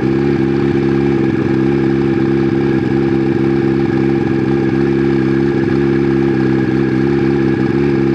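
Turbocharged Suzuki Hayabusa 1300 drag-bike engine idling steadily at an even pitch, heard up close from a camera on the bike's front fork.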